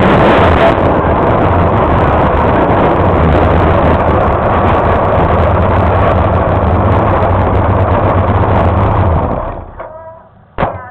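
Pro stock race car engine running loud and steady with a low drone while the car rolls slowly, then shut off about nine seconds in. A single sharp knock follows about a second later.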